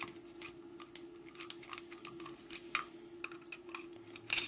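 Irregular light clicks and ticks of a driver turning in the small stator screws of a Bosch HEI distributor as they are undone, over a faint steady hum, with a brief louder scrape near the end.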